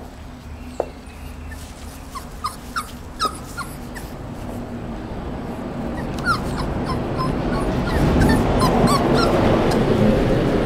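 English bulldog puppy whimpering in a string of short, high squeaks, with a steady noise swelling over the second half.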